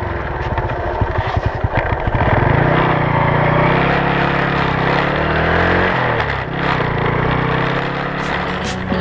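Motorcycle engine running on the move, its pitch climbing over the first few seconds as it pulls away, then holding steady. The pitch drops briefly about six seconds in and climbs again.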